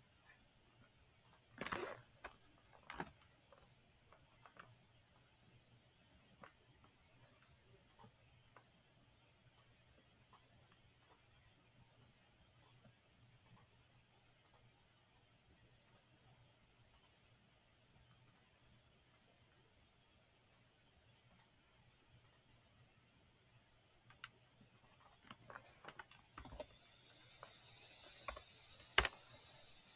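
Computer mouse clicking, single sharp clicks about once a second, with a quicker run of clicks and keyboard key presses near the end.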